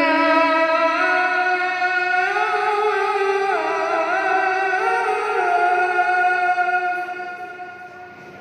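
A child qari's voice reciting the Quran in melodic tilawah style. He holds one long drawn-out note with ornamented turns in the middle, and it fades away near the end.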